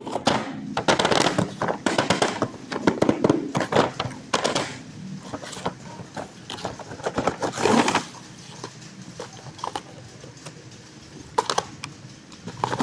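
Toy packaging being handled and opened: crackly rustling with many clicks for about eight seconds, then only a few scattered clicks.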